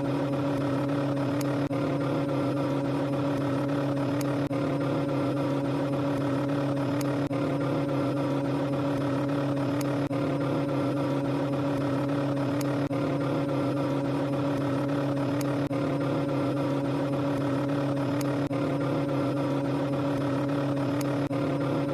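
A steady, unchanging engine-like drone with a strong low hum, broken only by faint ticks about every three seconds.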